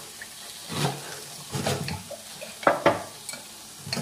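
Wooden spoon stirring water in a glass measuring jug to dissolve yeast and sugar, the liquid swishing, with two sharp knocks of the spoon against the glass a little under three seconds in.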